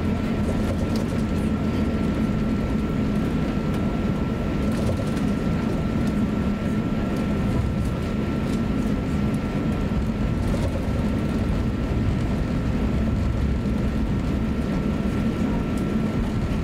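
Cabin noise inside an Airbus A350-900 taxiing on the ground: a steady low rumble with a thin, steady high whine over it and a few faint light rattles.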